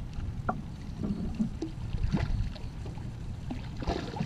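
Water lapping against a plastic kayak hull, with wind rumble on the microphone and a few short knocks and clicks. Near the end comes a splash as the hooked Chinook salmon thrashes at the surface beside the boat.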